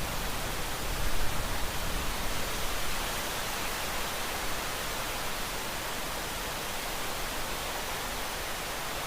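Steady hiss of heavy rain falling, briefly louder about a second in and then even.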